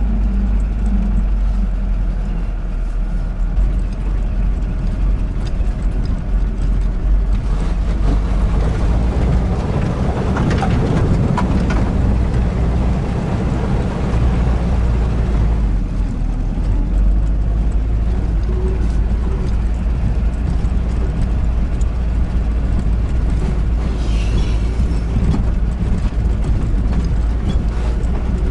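UAZ Bukhanka van's engine running under load as it drives through mud, a steady low rumble that grows louder and noisier for several seconds in the first half before settling back.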